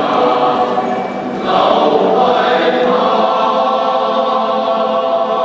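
Large all-male choir singing sustained chords in parts. A new phrase comes in about a second and a half in, after a brief dip.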